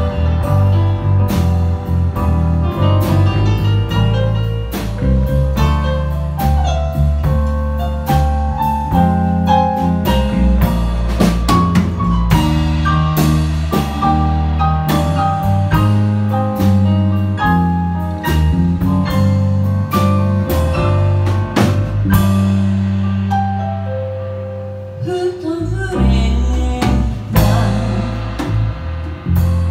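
Live pop band in an instrumental break: a keyboard plays quick runs of notes with a mallet-like, vibraphone-style tone over electric bass and drum kit. The level dips briefly late on, and the female lead vocal comes back in near the end.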